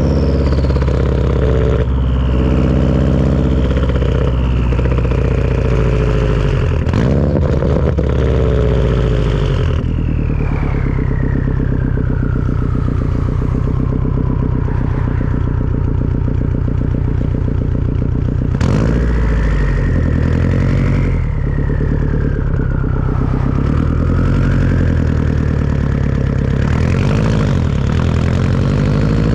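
Turbocharged Subaru engine with a Tomei turbo-back exhaust running, its turbo whistling in a high tone that slides slowly down and back up with engine speed. The sound breaks sharply twice, about 7 and 18 seconds in.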